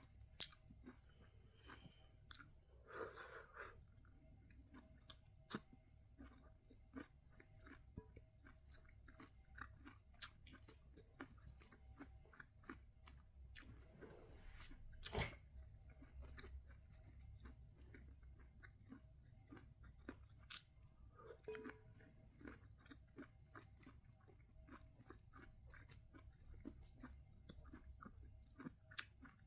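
A person chewing and biting sweet corn close to the microphone: soft, irregular crunchy bites and wet mouth clicks, with a few sharper bites here and there.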